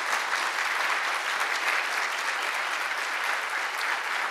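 Audience applause, a dense steady clapping of many hands.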